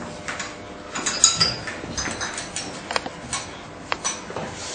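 Glass laboratory vessels being handled on a table: several separate clinks and knocks, a few of them with a short glassy ring.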